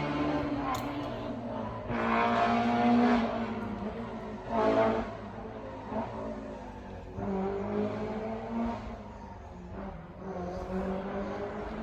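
BMW M3 E30 rally car's S14 four-cylinder engine revving up and down as the car is driven hard, the pitch rising and falling through the gears. It surges loudest about two seconds in and again shortly before the middle, then runs on at a lower, changing note.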